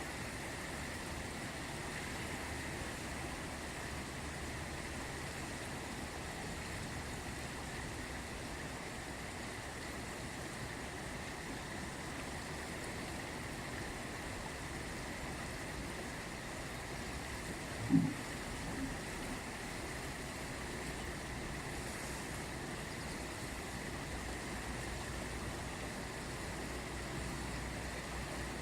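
The Ganges flowing, a steady rush of river water, with a single short thump about two-thirds of the way through.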